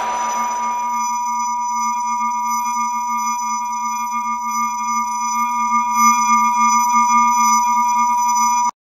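Synthetic sound-design tone: several steady pure tones held together over a low hum, after a hiss fades away in the first second. The tone cuts off abruptly near the end.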